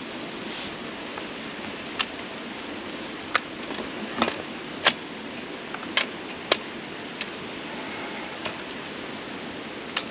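ENGWE Engine Pro folding e-bike being unfolded: a series of sharp metal clicks and clunks, about nine spread out, as the frame hinge swings shut and the folding clamps and latches are snapped closed.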